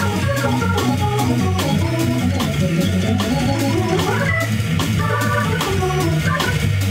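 Jazz combo at a fast swing tempo: an electric keyboard plays quick melodic runs over its own stepping bass line, while the drummer keeps time on the ride cymbal.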